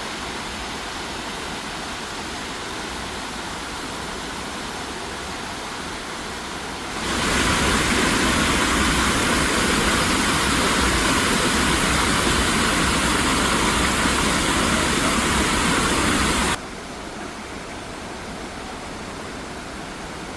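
Steady rush of running water with no other distinct sounds. It grows much louder about seven seconds in and drops back suddenly about sixteen seconds in.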